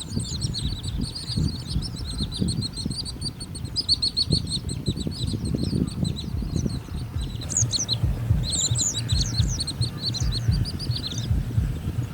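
A flock of small birds chirping: many short, high chirps overlapping densely, thinning out and stopping about a second before the end. A low, uneven rumble runs underneath.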